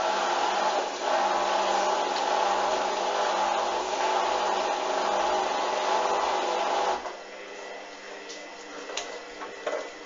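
Hoover A59 front-loading washing machine spinning an unbalanced load: a loud, steady motor whine and drum noise. About seven seconds in it cuts out suddenly, dropping to a quieter hum with a few clicks and knocks as the drum slows.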